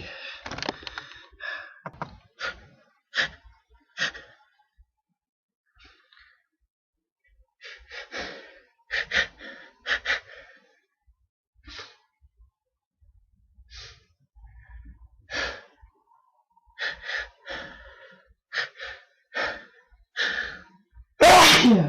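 A person's involuntary hitching: a long string of short, sharp catches of breath, some single and some in quick runs, with a lull in the middle. Near the end comes a loud sneeze that falls in pitch.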